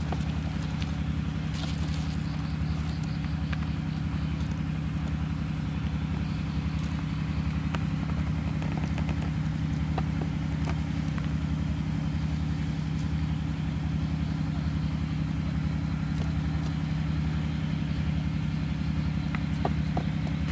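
A steady low motor drone with a regular pulse about once a second, unchanged throughout.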